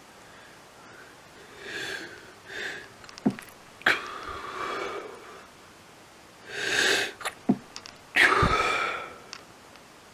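A person sneezing twice, about four seconds in and again, louder, about eight seconds in. Each sneeze follows a few drawn-in breaths and ends in a noisy exhale that trails off over about a second.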